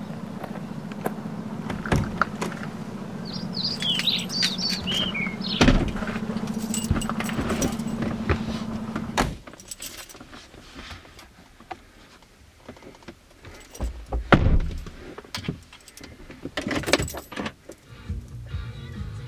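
A steady low hum, with a few bird chirps over it, stops abruptly about nine seconds in. Then keys jangling with scattered clicks and knocks inside a car cabin, busiest a few seconds before the end.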